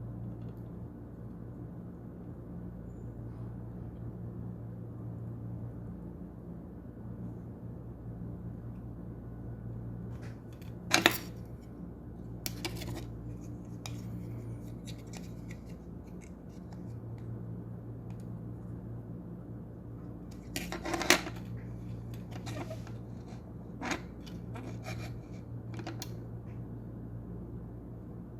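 Metal tools clicking and clinking against a circuit board and workbench during soldering, a handful of sharp ticks with the two loudest about a third and two-thirds of the way through, over a steady low electrical hum.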